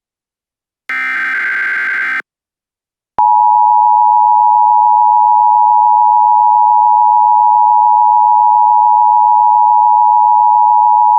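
Emergency Alert System signal. About a second in comes a burst of SAME digital header tones lasting about a second. After a short silence, around three seconds in, the steady two-tone EAS attention signal (853 and 960 Hz together) starts abruptly and holds loud and unbroken.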